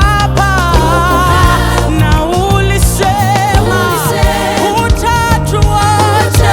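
Gospel worship song: a singer's voice with wide vibrato over a band with steady bass and a regular drum beat.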